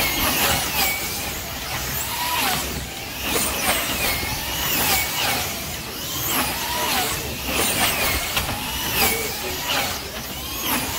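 Racing slot cars' small electric motors whining around a banked track, each passing car giving a rising-then-falling whine, over and over about once a second.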